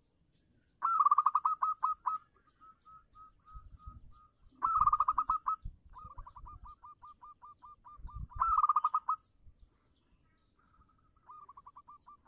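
Zebra dove (perkutut) cooing: three loud runs of rapid staccato notes, each trailing off into a softer, slower string of notes, then a faint run near the end.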